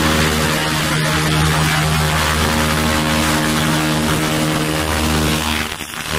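200 W fiber laser rust cleaning machine at work on a rusty steel tube, with a steady hum and a dense hiss, likely joined by a suction hose held at the cleaning spot. The sound dips briefly near the end.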